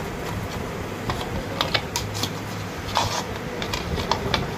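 Irregular light clicks and taps of a ceiling fan's cup and downrod being handled and worked loose by hand, over a steady low hum.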